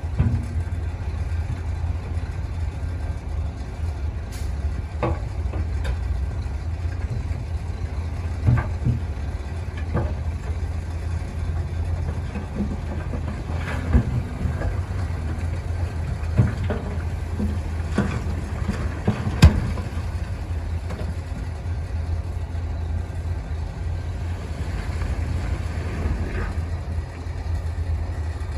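Heavy diesel earthmoving machinery running steadily with a low hum, with scattered sharp clanks and knocks, a few of them louder.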